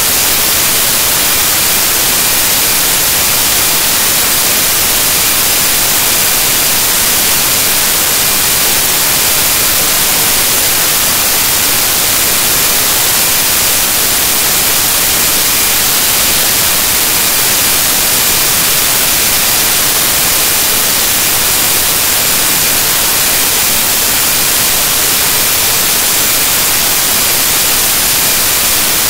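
Loud, steady static hiss, strongest in the high end, with no other sound in it. It is the noise of a corrupted file rather than any real sound.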